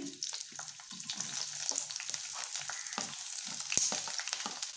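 Green bell pepper pieces dropping into hot mustard oil with onions in a ceramic-coated kadhai, sizzling steadily, with many short clicks and taps from the pieces landing and the spatula against the pan and plate.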